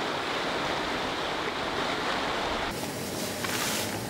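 Small mountain stream running over rocks, a steady rush of water. About three seconds in it gives way abruptly to a thinner, hissing noise.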